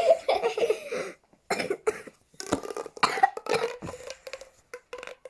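A child's voice making a run of short cough-like, throat-clearing noises.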